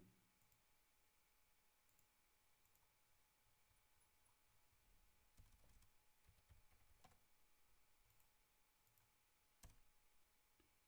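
Near silence with a few faint, scattered clicks of a computer keyboard being typed on.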